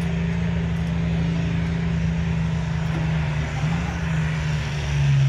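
A WWII-era military half-track's engine running steadily at low speed, its pitch dipping slightly about three and a half seconds in and again near the end, where it grows a little louder.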